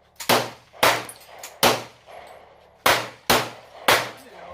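Six gunshots fired at an uneven pace, sharp and loud, each with a short ringing tail.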